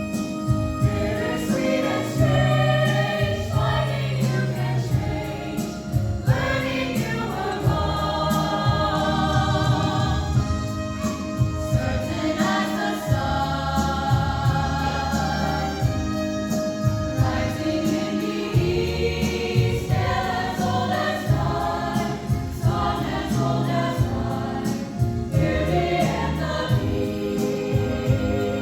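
High school choir singing part of a medley in full harmony over instrumental accompaniment with a steady beat.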